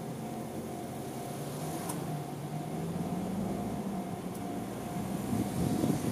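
Japanese railway level-crossing warning bell ringing in a steady repeating tone while the crossing is closed, over a low rumble that grows louder near the end.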